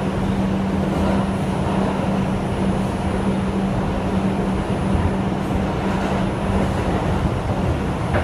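R142 subway car running between stations, heard from inside the car: a steady rumble of wheels and motors with a steady low hum.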